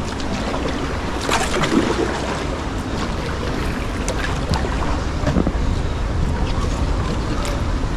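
Wind buffeting the microphone over water noise around a kayak on a river, with scattered small clicks.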